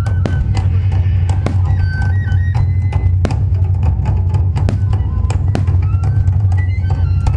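Music with drums and a melody, loud and steady, with sharp cracks at uneven intervals.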